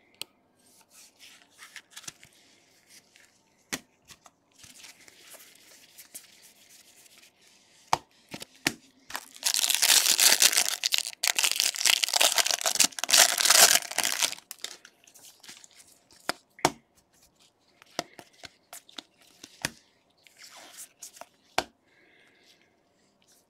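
A foil trading-card pack being torn open by hand: a loud ripping and crinkling of the wrapper for about five seconds near the middle, with quieter crinkles and sharp clicks from handling the pack and cards before and after.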